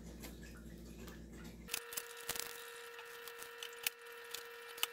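Faint, scattered clicks and taps of a kitchen knife trimming pearl onions on a plastic cutting board, with a small knock as an onion is dropped into a ceramic bowl.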